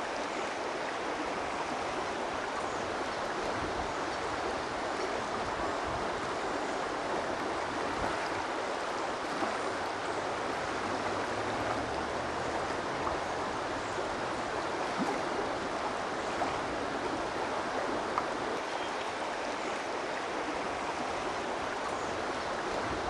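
A steady, even rushing of running water.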